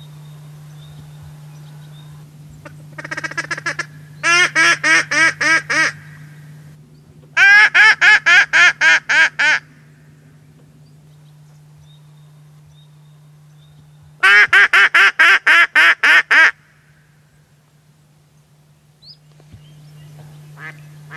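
A duck call (appeau) blown in quick runs of quacks: a short faint run, then three loud runs of about seven, ten and eleven quacks, with pauses between them.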